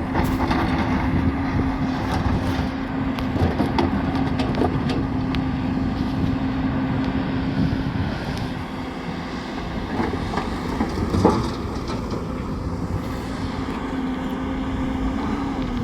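Bulldozer's diesel engine running under load, with scattered clanks and rattles. A steady whine holds through the first half, drops out, and returns near the end.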